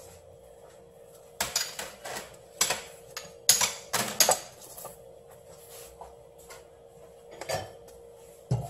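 Kitchen knives knocking and clacking on a wooden cutting board as fish fillets are handled: a cluster of sharp clicks in the first half and one more near the end, over a faint steady hum.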